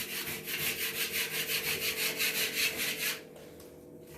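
Rapid back-and-forth hand scraping or sanding of a wall's old paper and filler layer, several strokes a second, stopping a little after three seconds in.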